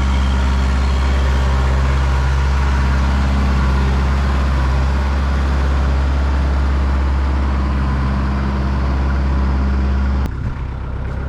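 Diesel engine of a Kubota L48 tractor loader backhoe idling steadily, running after a hydraulic seal, O-ring and quick-connect coupler repair. It cuts off suddenly near the end.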